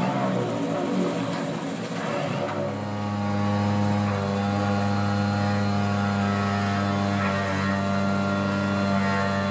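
Excavator-mounted piling rigs working, with an earth auger and a vibratory pile hammer, their diesel engines and hydraulics running. The sound is uneven at first, then about two and a half seconds in it settles into a loud, steady drone.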